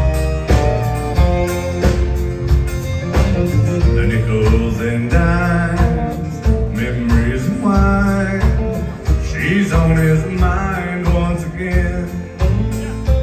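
Live country band playing with acoustic guitar, fiddle, electric bass and drums keeping a steady beat; a male voice sings lead from about four seconds in.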